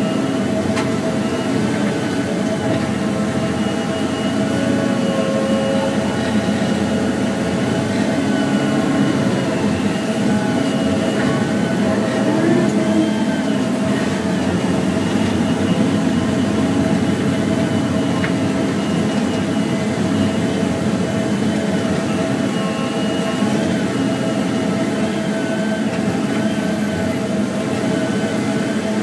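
Volvo 3329FM feller buncher's diesel engine running steadily under load, with a hydraulic whine that rises and falls in pitch as the boom and Satco 630 felling head are worked.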